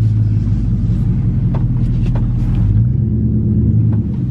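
Chevrolet pickup truck's engine running, heard from inside the cab as a steady low hum whose pitch shifts slightly about three seconds in.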